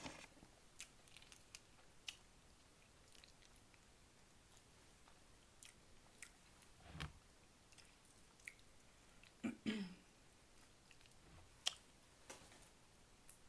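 Close-miked, quiet chewing and mouth sounds of someone eating a burger, with soft scattered smacks and clicks.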